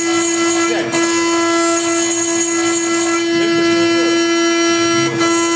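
MAX7 CNC milling machine's spindle whining at one steady pitch while a small end mill cuts into a brass plate, with a higher hiss of cutting that comes and goes.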